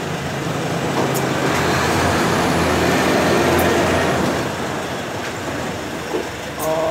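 A large motor vehicle passes close by: engine rumble and road noise swell over about three seconds, then fade away.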